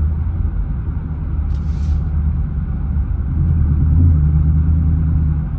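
Jeep engine fitted with a freshly installed K&N cold air intake, pulling under acceleration: a steady low rumble that swells about three seconds in and eases off again. The new intake makes the engine sound louder.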